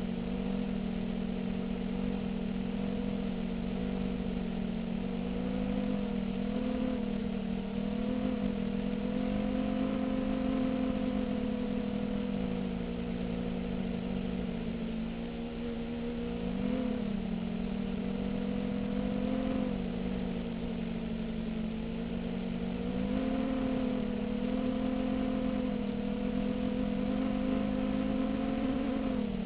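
Diatone FPV250 racing quadcopter's four RCX 1806 2400kv brushless motors with Gemfan 5-inch props whining steadily in flight, the pitch rising and dipping together as the throttle changes, with a brief dip about halfway through and another near the end.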